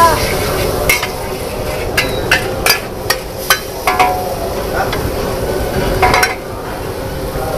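Metal spatula scraping and clanking against a large steel wok as noodles are stir-fried, with irregular sharp knocks over a steady sizzle of frying.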